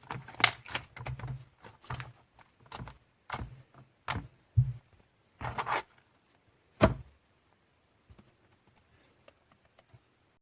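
Hands squishing and pressing slime: irregular sticky clicks and pops, some with a soft thud, which grow sparse and faint over the last few seconds.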